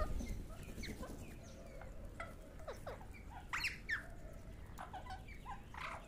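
A flock of rose-ringed parakeets calling: many short, sharp calls that slide downward in pitch, scattered and overlapping, with a louder cluster about three and a half seconds in.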